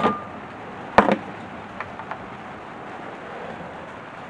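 Two sharp knocks, one at the very start and another about a second in, followed by a couple of faint clicks.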